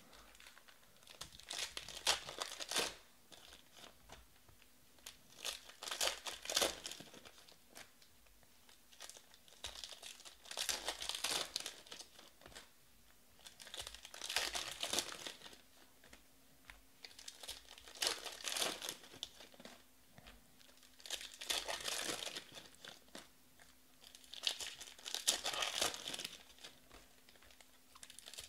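Shiny foil wrappers of Panini Prizm baseball card packs being torn open and crinkled, one pack after another, about seven bursts every three to four seconds.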